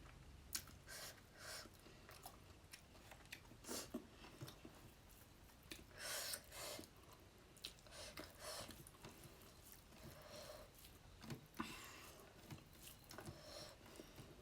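Close-miked chewing of a fish curry meal: quiet wet mouth clicks and smacks with a few short, louder bites scattered through.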